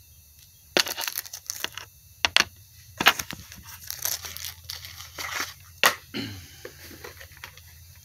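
Kit packaging being handled and unwrapped by hand, with irregular sharp crinkles and crackles, busiest from about a second in to six seconds in.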